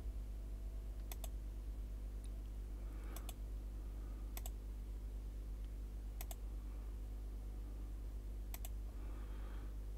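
Computer mouse clicking in quick pairs, five times, over a steady low electrical hum.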